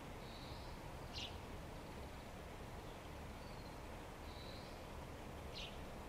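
Faint calls of a small wild bird over a steady low background hiss: a few soft short high notes, and two sharper brief high notes, about a second in and near the end.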